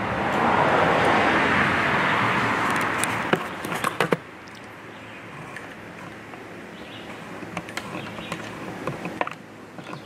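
A passing vehicle: a swell of road noise that fades after about four seconds, with a few sharp clicks and knocks near its end and scattered faint ticks after.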